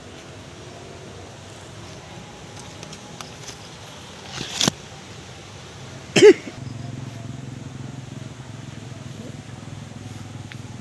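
Strong wind buffeting the microphone with a steady low rumble. There are two sudden louder bursts, about four and a half and six seconds in, the second with a short pitched sound, and after it the rumble is louder.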